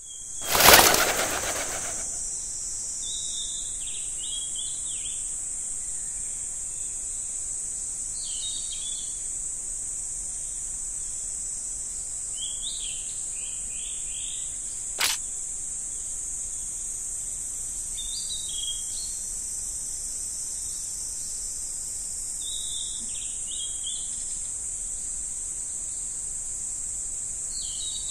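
Forest ambience: a steady high-pitched insect drone with short bird chirps every four to five seconds. A loud sudden swell of noise just after the start dies away over about a second, and a single sharp click comes about halfway through.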